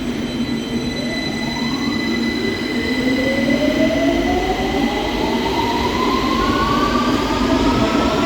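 London Underground 2009 Stock train accelerating away from the platform, its traction motors giving a rising whine. One whine starts climbing about a second in and a stronger one joins a second or so later, over the train's rumble, which grows steadily louder.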